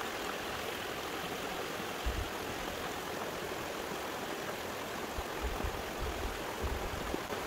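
Steady rush of running water from a small mountain spring and runoff stream, with a few soft low thumps.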